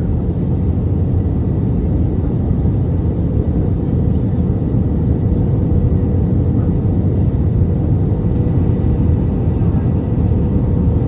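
Steady engine and airflow drone inside an Airbus A321 passenger cabin, a loud even rumble with a thin steady tone running through it.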